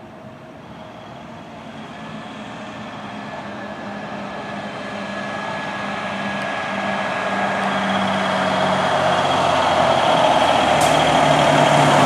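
Fire truck approaching without its siren, its engine steadily growing louder as it nears. The engine note drops about ten seconds in as it slows.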